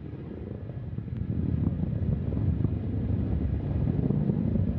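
Antares rocket's first stage, with its two RD-181 engines, heard as a deep rumble with scattered crackles. It grows louder over the first couple of seconds, then holds steady at full thrust.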